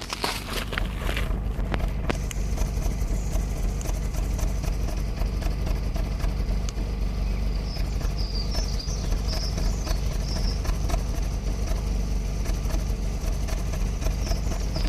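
Vauxhall Corsa C petrol engine idling with a steady, pulsing low running note: the rough idle the car is being checked for.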